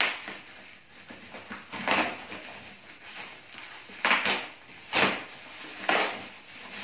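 Black plastic wrapping on a parcel being slit with a cutter knife and torn back by hand. About five short crinkling, tearing rustles come a second or two apart.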